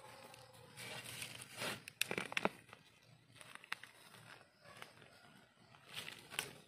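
Gloved hands digging in dry red soil and leaf litter to lift out termite mushrooms: crumbling soil and crackling dry leaves and twigs, in uneven bursts, loudest about two seconds in and again near the end.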